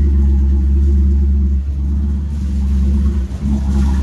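PCM ZR450 6.2-litre V8 inboard engine of a wake boat running steadily out of the water on a garden-hose flush hookup, a deep exhaust rumble at a constant pitch.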